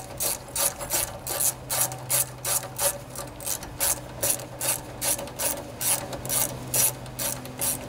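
Hand socket wrench ratcheting in quick, even strokes, about three to four clicks a second, as it runs down the carburetor mounting nuts.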